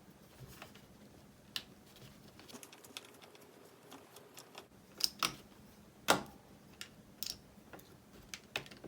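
Scattered light clicks and taps of a small screwdriver and hard plastic parts being handled, as a small screw is taken out of an RC transmitter's steering wheel. The loudest clicks come a little past halfway.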